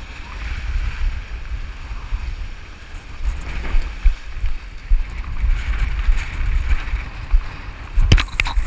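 Wind buffeting the microphone in gusts, with whitewater rushing and splashing around a windsurf board under sail. A few sharp knocks come near the end.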